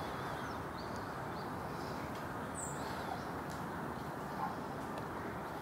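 Steady low outdoor background rumble with a few faint, high bird calls, including a short sharp high chirp about two and a half seconds in.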